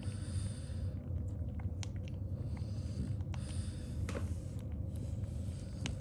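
Newborn French bulldog puppies suckling at their mother's teats: irregular wet smacks and clicks, roughly one every half second, over a low steady rumble.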